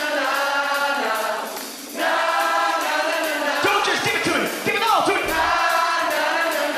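Live rock-and-soul band playing with drums and cymbals under several voices singing, the sound of a club concert recording; the music dips briefly just before two seconds in, then comes back full.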